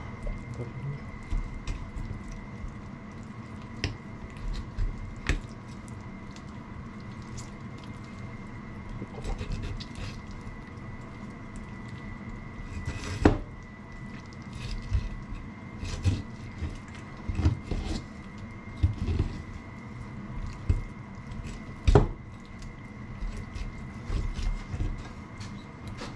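Wet kitchen handling sounds from butchering a softshell turtle: squishing and dripping with scattered knocks. Two sharper knocks come about 13 and 22 seconds in.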